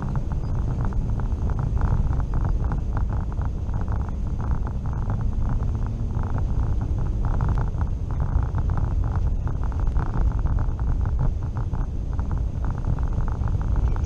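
Car driving on a snow-covered road, heard from inside the cabin: a steady low rumble of engine and tyres with a dense, irregular crackle.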